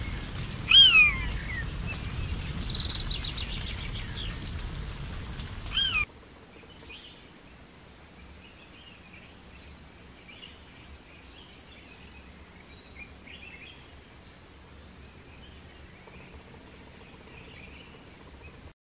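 Forest ambience with birds calling: a loud falling call about a second in, a quick trill a couple of seconds later and another call near six seconds, over a steady noisy background. After a sudden cut the background turns much quieter, with faint scattered bird chirps.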